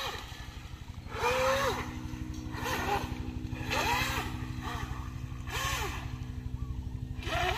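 Electric RC speedboat's Racestar brushless motor, running on a 3S battery, driving the boat in tight circles on the water. A whine rises and falls in pitch every second or so, each time with a burst of spray hiss, over a steady low hum.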